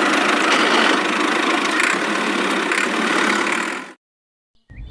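Small tractor engine running steadily, then cutting off abruptly about four seconds in.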